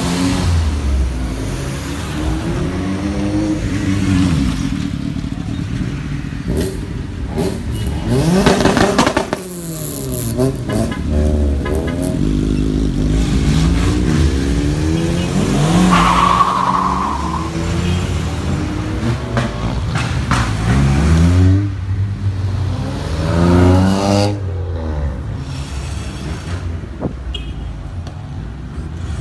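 Cars and a motorcycle revving and driving off one after another, with engine pitch rising and falling over and over.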